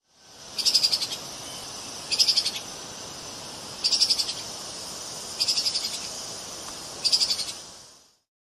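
Treeshrew (Tupaia) calling: five short, rapid, high-pitched trills about a second and a half apart, over a steady background hiss.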